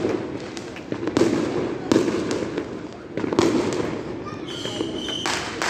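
New Year's fireworks going off: four sharp bangs, each fading into a rumbling echo, with a short steady high whistle just before the last one.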